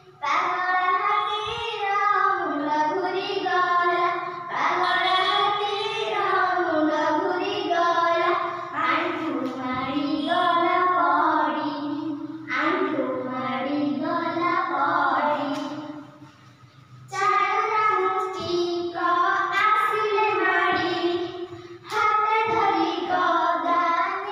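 Young girls singing an Odia children's song, with one short pause about two-thirds of the way through.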